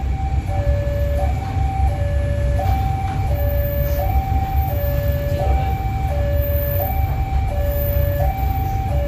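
Level-crossing warning alarm sounding, switching steadily back and forth between a higher and a lower tone about every 0.7 s, over the steady low rumble of a train passing the crossing.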